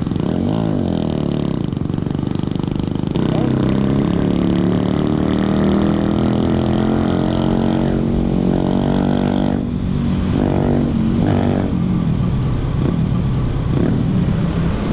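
Yamaha NMAX scooter's single-cylinder engine running steadily while riding. About ten seconds in, the engine note wavers and shifts in pitch.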